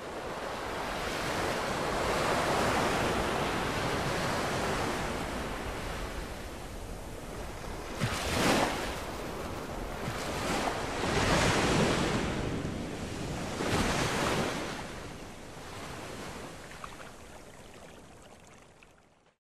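Sea surf: waves washing in as a steady rush, with three louder swells a few seconds apart in the second half, then fading away near the end.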